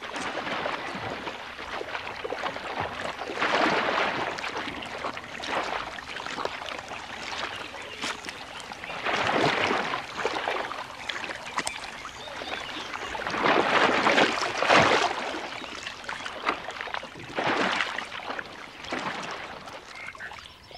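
Nile crocodiles thrashing and spinning on a carcass in shallow mud and water, with splashing and sloshing that swells into several louder surges every few seconds.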